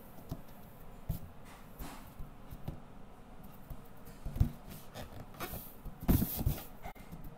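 A baby's hands patting and rubbing an inflated balloon: scattered soft thumps and rubbing sounds, the loudest about four and a half seconds in and a cluster of them around six seconds in.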